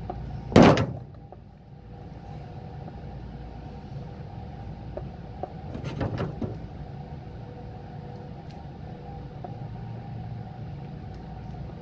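Steady low hum of a running commercial HVAC unit. A loud, short noise about half a second in and a weaker one about six seconds in break over the hum.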